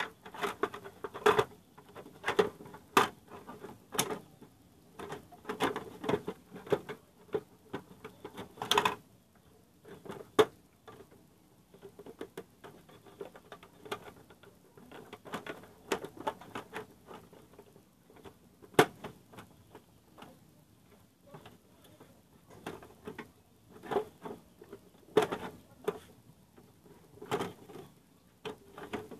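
Irregular clicks, taps and light scraping of hands handling and pressing on the plastic housing of an Elgin sewing machine, with a few sharper knocks among them.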